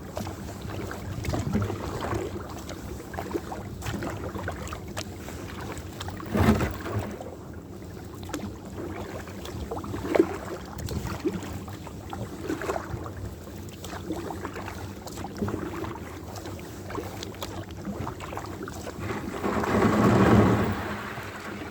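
Kayak on open water: paddle strokes and water splashing and lapping against the hull come every couple of seconds over a steady bed of wind noise on the microphone. Near the end a louder rush of noise swells up and fades.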